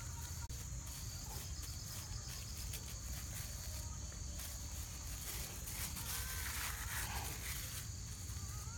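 Crickets and other night insects chirring steadily in a high, even drone, over a low background rumble.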